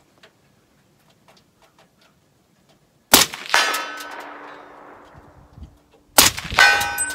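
Two shots from a 7.62x39 AR-15 about three seconds apart, each followed about half a second later by a metallic ring from a steel target being hit. The rifle has a Jewell trigger and an enhanced firing pin, and both rounds fire, so the pin is setting off the hard primers of the steel-cased ammo.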